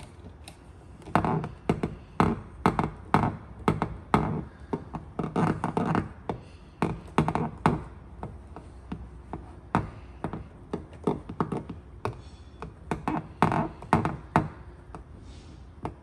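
Repeated light taps on a truck's steel door panel, about two to three a second in irregular runs with short pauses, typical of a paintless dent repair tap-down tool being struck to level high spots in the metal.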